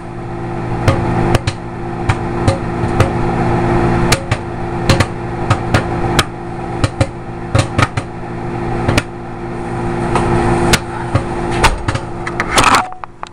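Microwave oven running with a steady hum while a bag of popcorn pops inside: sharp, irregular pops, a few a second. Near the end there is a short rush of noise.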